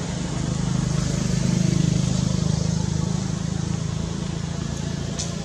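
Engine hum of a passing motor vehicle, swelling to its loudest about two seconds in and then slowly fading, over a steady outdoor hiss.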